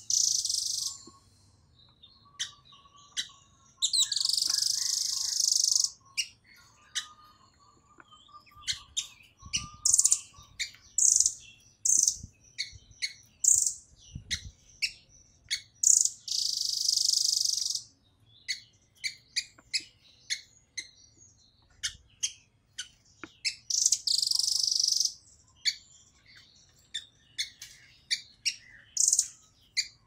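Blue nuthatch (rambatan Doraemon) calling in a dense, rapid series of short, sharp high notes, broken three times by harsher, buzzy stretches of about two seconds each.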